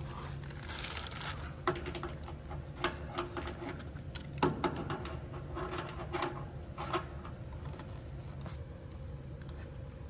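Brass refrigerant service-valve caps and hose fittings being handled and screwed tight: scattered small metallic clicks and taps, the sharpest about four and a half seconds in, over a low steady hum.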